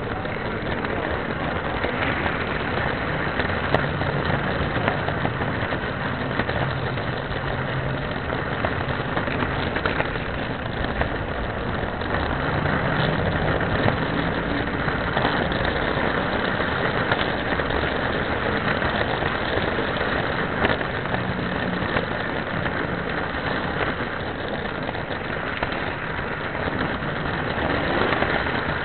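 O scale model train running along the layout track, heard from on board: a steady, even noise of wheels rolling on the rails and the locomotive's motor, with a low hum that shifts in pitch now and then.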